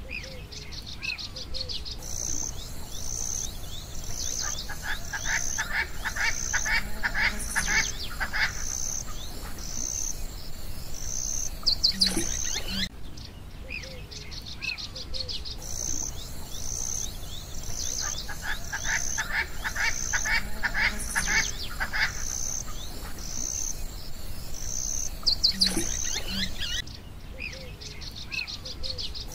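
Chirping and trilling calls of small animals: a high pulse about once a second, with bursts of rapid trilling and a few sharp calls. The same stretch repeats after about 13 seconds, as a looped nature recording does.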